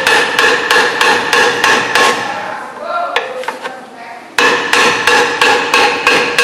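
A small sledgehammer strikes rapidly at a seized rear brake drum on a 1970 VW Variant while a large screwdriver levers between the drum and the backing plate, working loose brake linings that are stuck to the drum. The metallic strikes come about three a second and ring after each blow. They break off for about two seconds midway, with a few lighter knocks in between, then resume.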